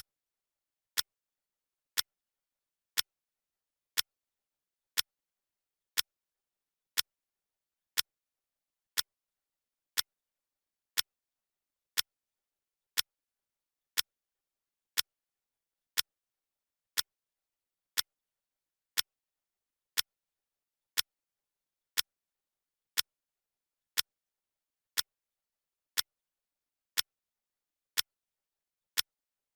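Clock ticking, one sharp tick every second, with silence between the ticks.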